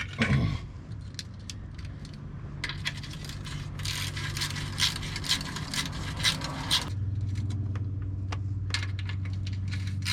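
Hand ratchet clicking in quick runs, with light metal clinks of sockets and bolts, as small bolts are snugged up on an oil pan riser.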